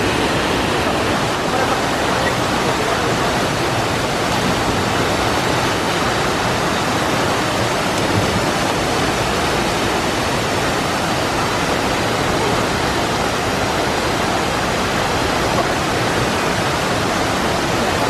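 Artificial waterfall cascading down a rock face into a plunge pool, a steady rushing of falling water.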